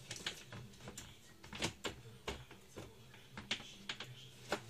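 Bengal cat wrestling a rag on a textured mat, its claws catching and scratching: a run of irregular sharp scratches and clicks, several louder ones spaced about a second apart.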